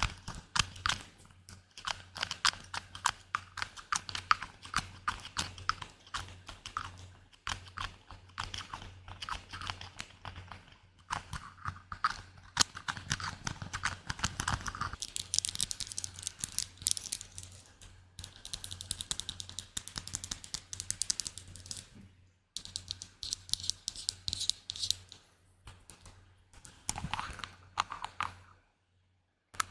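Close-miked ASMR tapping: rapid light taps and clicks, many a second, like typing. Midway the taps give way to stretches of soft hissing rubbing, with a faint low hum underneath.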